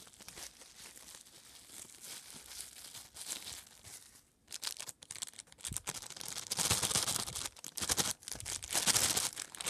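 Clear plastic wrapping crinkling and rustling as it is handled and pulled off a figure, in quick irregular bursts. It grows louder about halfway through.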